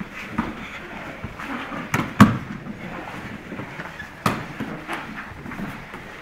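Brazilian jiu-jitsu grappling on foam mats: scuffling of gi cloth and bodies, with a few sharp slaps and thumps. The loudest comes a little over two seconds in, and another just after four seconds.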